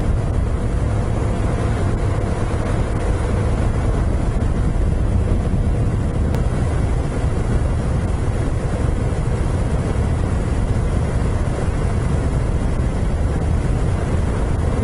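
Moto Guzzi V7 Special's air-cooled V-twin engine running at a steady cruise, mixed with a constant low rush of wind and road noise.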